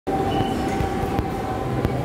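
Steady background din of a busy restaurant dining hall, with a thin steady hum and two short sharp clicks.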